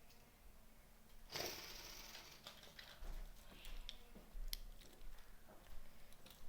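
Small plastic toy pieces being handled: a brief rustle about a second in, then scattered light clicks and taps.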